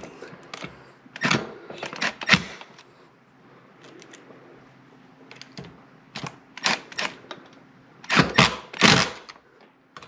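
Sharp metallic clicks and knocks, scattered in two clusters with a quieter stretch in the middle, as a mechanical safe lock body is fitted and screwed onto a steel gun-safe door.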